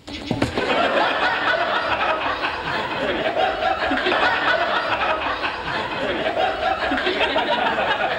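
A sitcom studio audience laughing, building within the first second and continuing for about eight seconds.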